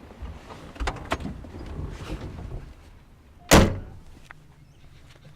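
A car door is handled with a few clicks and then slammed shut once, loudly, about three and a half seconds in, over a low rumble.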